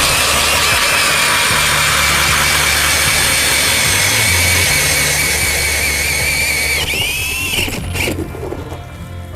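A power ice auger drilling through lake ice: a steady whirring grind with a high whine. Near the end the whine sags and wobbles, and it stops about eight seconds in.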